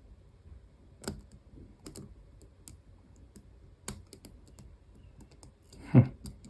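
Lock pick clicking and scraping against the sliders inside an EVVA ICS high-security cylinder, with a few sharp, scattered clicks. A louder, duller knock comes near the end.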